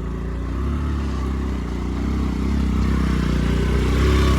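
Motorcycle engine running hard and revving, getting steadily louder toward the end.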